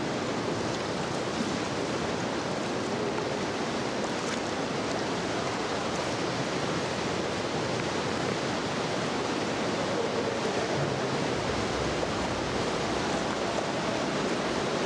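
Atlantic swell surging and breaking among rocks at the mouth of a sea cave: a steady rush of white water with no let-up.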